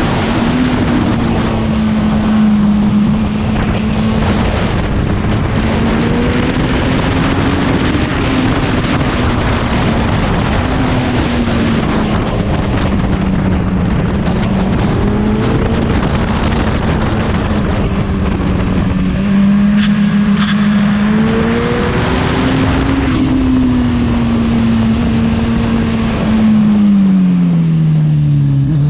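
Kawasaki Z1000's inline-four engine breathing through a full Arrow exhaust system, running hard through the gears on the road, its pitch rising and falling with the throttle and dropping in steps near the end as the bike slows. Wind rush on the microphone underneath.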